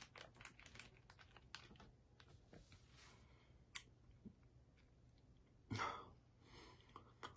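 Faint chewing of a sticky sour soda gum: small wet mouth clicks, with one short, louder rush of breath-like noise about six seconds in.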